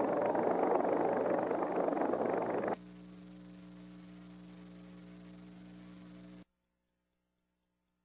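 A loud rushing noise cuts off abruptly about three seconds in, leaving a steady electrical hum with several overtones. The hum then stops dead a little after six seconds.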